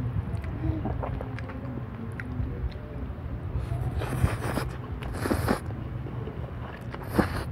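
A man slurping pancit canton noodles off a fork, in three bursts: about four seconds in, around five seconds, and a short one near the end. A steady low rumble runs beneath.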